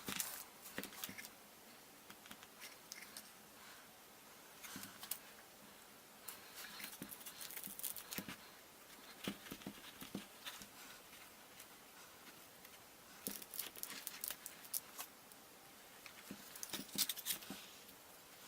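Faint, scattered light clicks and ticks, like small objects being handled, with a brief flurry of them about two-thirds of the way through and another near the end.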